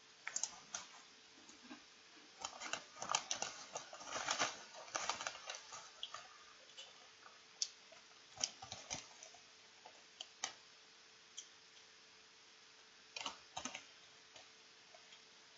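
A foil potato-chip bag crinkling as a hand reaches in, and potato chips crunching as they are eaten. The crackles come in dense clusters over the first six seconds, then scattered, with another short cluster near the end, over a faint steady hum.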